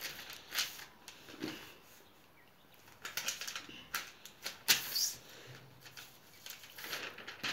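A sheet of paper being folded and creased by hand: a series of short rustles and crackles with quiet gaps between, the sharpest crackle a little under five seconds in.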